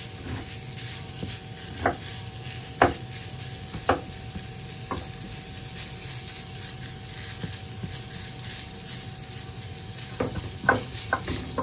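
Ground beef sizzling lightly in a nonstick frying pan while a spatula breaks it up, knocking against the pan a few times, most sharply about three seconds in, then in a quick run of taps near the end.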